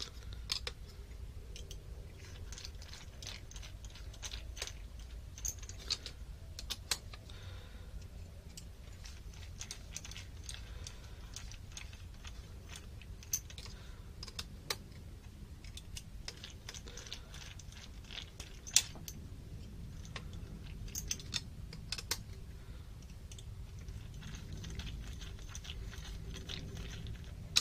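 Small screws and nuts being tightened into a quadcopter frame with a hex driver and a nut driver: scattered light clicks and ticks of the tools and small metal hardware, over a steady low room hum.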